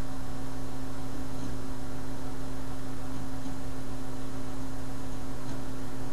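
Steady electrical mains hum, a constant low drone with faint hiss behind it, unchanging throughout.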